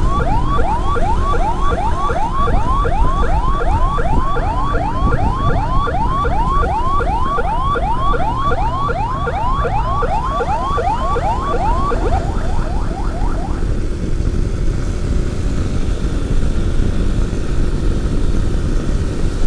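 Electronic emergency siren in a fast yelp, rising sweeps repeating about twice a second, over steady road and wind noise. The siren stops about twelve seconds in, leaving only the road and wind rush.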